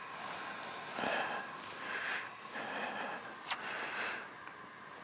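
A person sniffing and breathing close to the microphone, several soft sniffs about a second apart, with a small sharp click about three and a half seconds in.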